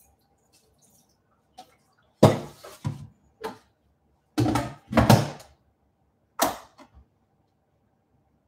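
Clunks and clatter of cookware as a stovetop kettle is set down on the counter and a see-through lid is put on a pan of greens. There are about seven knocks, the loudest about two seconds in and again about five seconds in.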